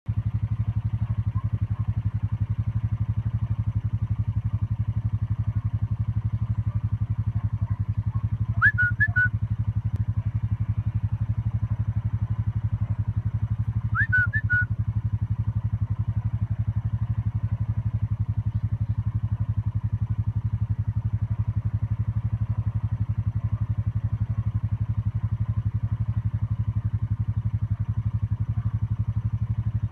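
A steady low drone with an even pulse, like an engine running. Over it come two short clusters of quick rising shepherd's whistle notes, commands to a working sheepdog: one about nine seconds in, the other about fourteen seconds in.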